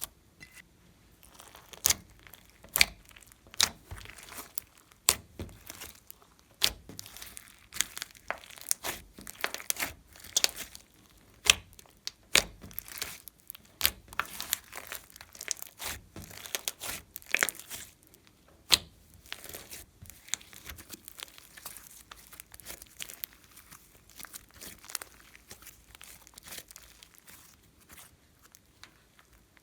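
Clear slime being mixed and squeezed by hand, giving irregular sharp clicks, pops and crackles that thin out over the last several seconds.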